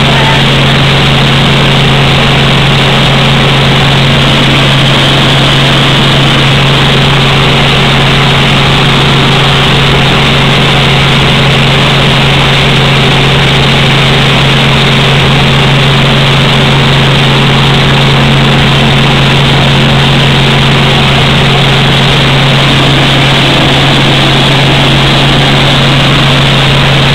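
Helicopter in flight heard from inside the cabin: a loud, steady drone of engine and rotor with a constant low hum beneath it.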